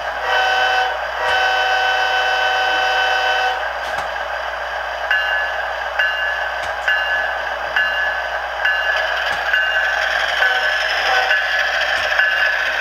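Bachmann HO scale GE ES44AC's SoundTraxx sound decoder sounding its air horn, a short blast and then a long one, then ringing the locomotive bell about once a second over the steady diesel prime mover sound.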